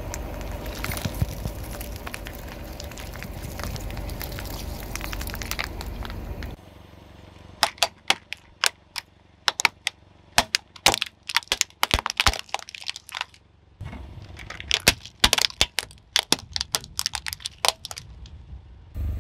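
A car's low rumble for about six seconds, then a long run of sharp cracks and snaps as brittle things are crushed under its tyre, the rumble returning near the end.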